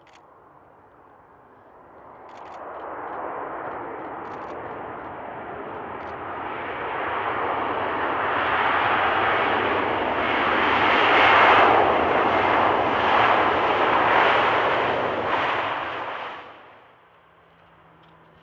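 Airbus A320 jet engines roaring on the landing rollout, most likely in reverse thrust. The noise swells as the airliner rolls closer and passes, then cuts off suddenly near the end.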